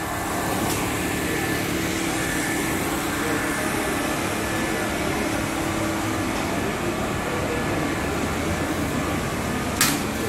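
Steady mechanical hum with a faint hiss, and one sharp click near the end.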